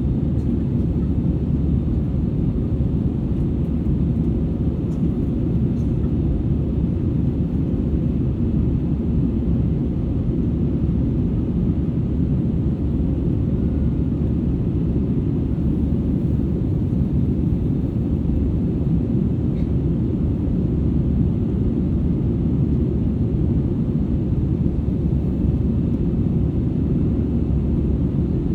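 Airbus A320-200ceo airliner cabin noise from a rear seat: a steady low rumble of the engines and airflow, even throughout.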